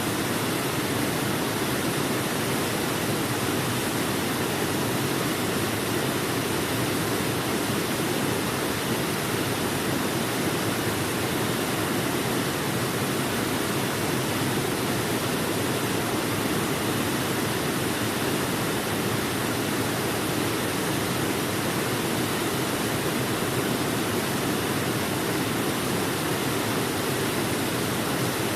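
Waterfall: water falling and splashing in a steady, unbroken rush, fullest in the low-middle range.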